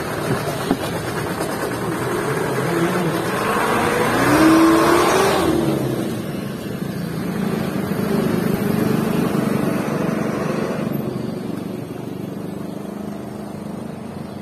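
Light diesel dump truck pulling away: the engine revs up, its pitch rising and then falling, loudest about four to five seconds in, then the sound fades as the truck drives off.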